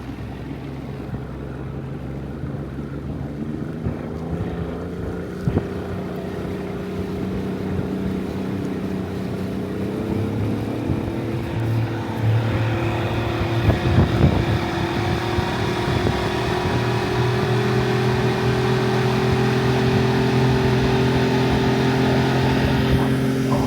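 Fishing boat's motor throttling up out of an idle zone: its pitch climbs through the first half, then holds steady and louder at speed.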